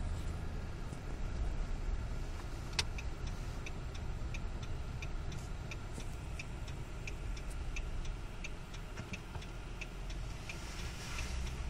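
Cabin sound of a V8 vehicle driving slowly: a steady low engine and road rumble, with a regular ticking about two to three times a second, like a turn-signal clicker.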